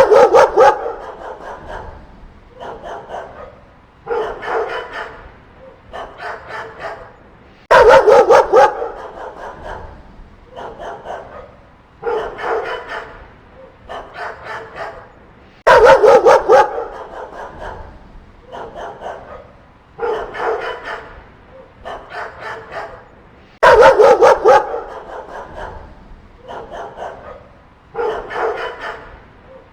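Dogs barking in repeated volleys: a loud burst of barks about every eight seconds, each followed by a run of quieter barks.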